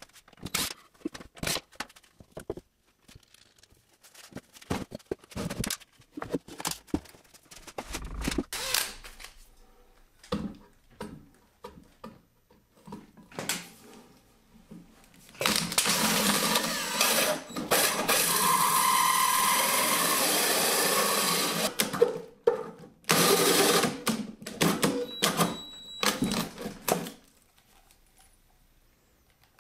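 Cordless drill driving a hole saw through a plywood bench top: a steady cutting run of about six seconds in the middle, then several shorter bursts. Before it come scattered short knocks and clicks.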